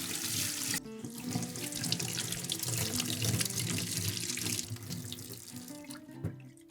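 Tap water running into a sink and splashing; the flow stops about four and a half seconds in, with soft background music underneath.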